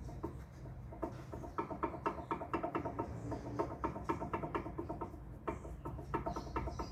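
Worn front suspension ball joint being rocked by hand, its loose stud clacking in the socket in a quick, irregular series of short metallic knocks. The clacking is the sign of the large play in the ball joint.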